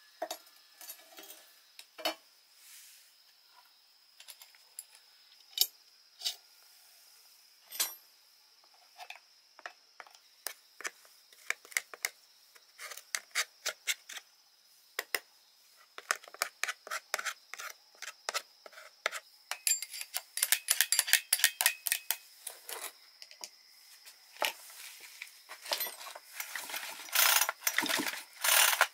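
Hand tools and small metal parts clicking, tapping and clinking in a long string of short knocks. The knocks are sparse at first, then come faster and louder over the last ten seconds.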